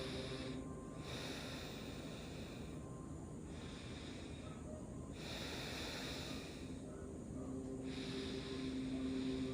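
A person's slow, steady sleep breathing: long soft breaths, one swelling in about every one and a half to two seconds with short pauses between, over a faint sustained drone of ambient music tones.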